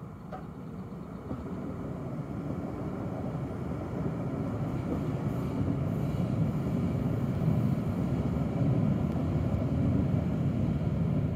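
Red electric multiple-unit passenger train running past on the tracks, a rumble of wheels and running gear that grows steadily louder as the train comes closer and passes nearby.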